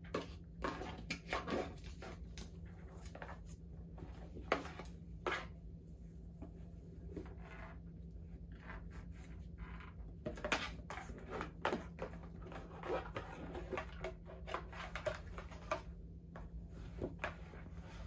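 A rigid cardboard gift box being opened and its contents handled: scattered taps, scrapes and soft rustles, busier in the second half, over a steady low hum.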